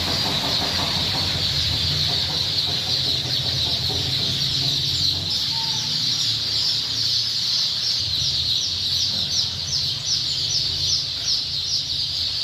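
A flock of broiler chicks peeping continuously in a dense, high-pitched chorus, with separate falling cheeps standing out near the end, over a steady low hum.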